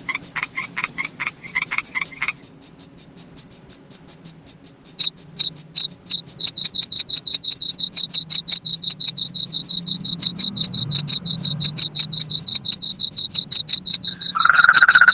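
Crickets chirping at night in a fast, even pulse of about five chirps a second, with a second, slightly lower chirping joining about five seconds in. Lower pulsed calls sound during the first two seconds, and a steady trill starts near the end.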